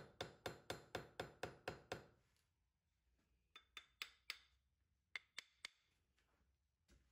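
Ball-peen hammer tapping a pin on an anvil in a fast, even run of light strikes, about four a second, for about two seconds. It is peening the pin end to spread it so it cannot slip back through the knife guard. A few faint clicks follow.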